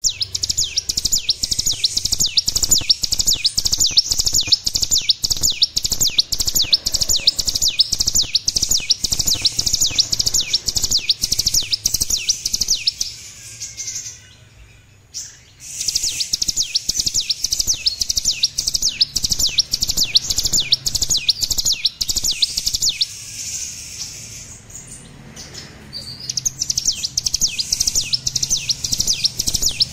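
Young ciblek gunung (mountain prinia) still learning its song: a fast run of high, sharp repeated notes, several a second, that breaks off twice for a few seconds before starting up again.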